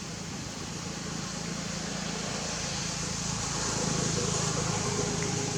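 Steady background rumble and hiss that grows slightly louder partway through, with a faint hum near the end.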